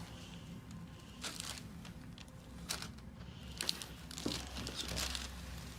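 Quiet rustling and crinkling, with a few brief scuffs, from a patient being handled on a chiropractic table.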